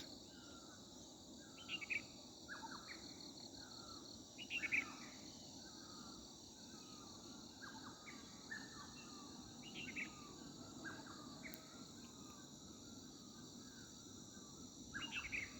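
Insects keeping up a steady high drone, with birds calling over it: a short falling call repeated a little more than once a second and a few louder chirps.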